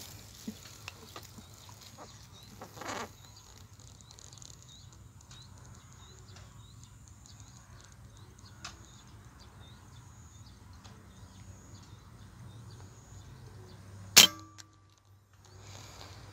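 A single PCP air rifle shot, one sharp crack about fourteen seconds in, followed by a brief ringing tone. Before it come a few small handling clicks and faint, high chirps repeated about twice a second over a low steady hum.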